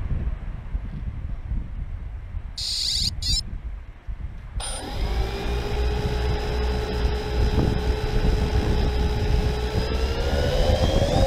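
Wind buffeting the microphone, with a short high-pitched burst about two and a half seconds in. About four and a half seconds in, the electric motors and propellers of a 3DR Solo quadcopter spin up to a steady whine, which rises in pitch near the end as the throttle comes up.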